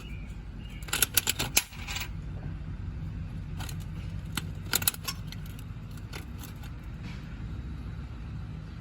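A quarter going into a gumball machine's coin mechanism: a quick run of sharp metallic clicks and rattles about a second in, then a few more scattered clicks a few seconds later, over a steady low rumble.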